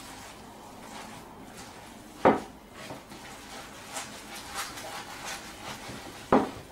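Hands mixing grated potato, egg white and flour in a glass bowl, with small clicks as the fingers work. The glass bowl knocks sharply twice, about two seconds in and again near the end.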